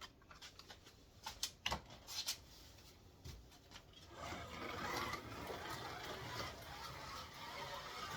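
A few sharp clicks, then from about four seconds in a Scalextric VL Commodore slot car, run with its magnet removed, running steadily around the track.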